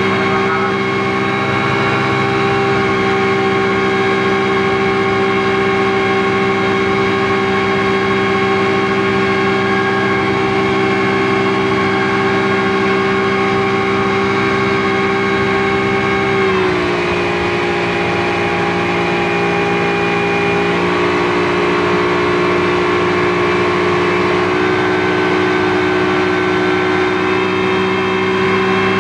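Speedboat engine running steadily at speed, heard from on board. About two-thirds of the way through, its pitch drops a step as the engine slows, then holds at the lower speed.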